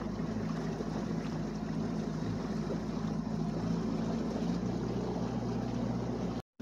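A fishing boat's outboard motor runs steadily under way, a constant engine hum over the rush of water and wind. The sound cuts out for an instant near the end.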